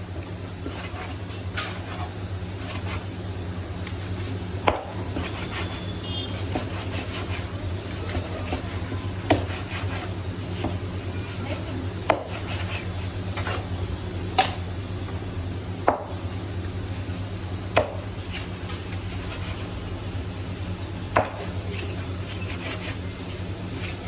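Large knife slicing skin-on Indian salmon into steaks on a wooden chopping block, the blade knocking sharply on the wood as each cut goes through, seven times at gaps of two to four seconds, with softer scraping between.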